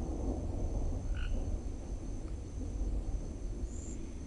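Night chorus of insects trilling in a steady, pulsing high rhythm, with a frog giving one short call about a second in, over a low, fluctuating rumble.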